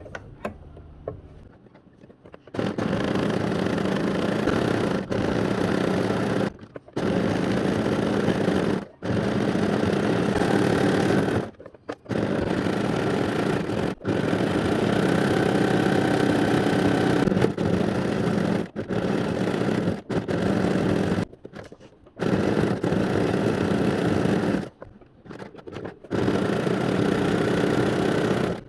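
Janome domestic sewing machine running fast for free-motion embroidery. It stitches in runs of a few seconds broken by short stops, after a couple of seconds of light clicks at the start.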